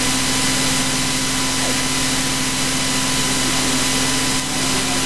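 Steady hiss with a low electrical hum and faint steady tones, the background noise of an old tape recording of a sermon, heard in a pause between phrases.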